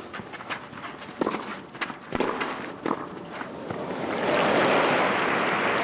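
Tennis rally on a clay court: racket strikes on the ball and players' shoes scuffing the clay, sharp knocks roughly a second apart. From about four seconds in, crowd applause swells up as the point ends.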